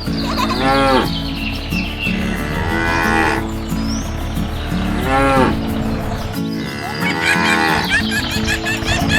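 Cattle mooing, four calls about two seconds apart that each rise and fall in pitch, over background music.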